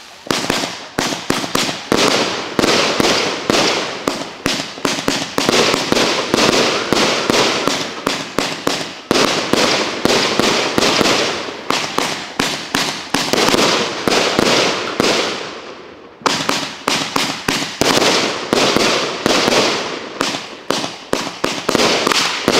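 Aerial consumer fireworks from a multi-shot cake firing a dense run of shots, several bangs a second. The volley dies down about fifteen seconds in, then another starts abruptly.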